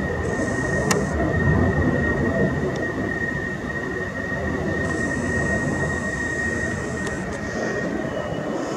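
F-16 jet engine noise: a steady low rumble with a constant high whine.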